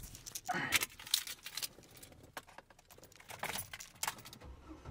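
Keys jangling, with scattered light clicks and rattles, as keys are handled in a vehicle's cabin. A low hum comes in near the end.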